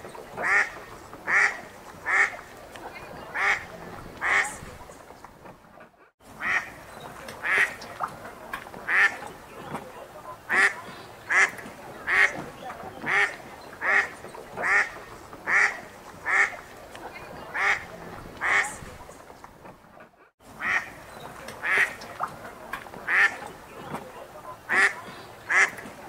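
Ducks quacking in a steady run of short, repeated quacks, about one or two a second. The sound drops out abruptly and briefly twice.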